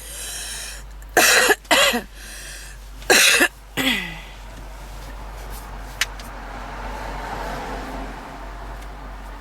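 A woman's harsh smoker's cough: a wheezing breath in, then four loud coughs in two pairs, followed by quieter breathing and a single click about six seconds in. A steady low car-cabin hum runs underneath.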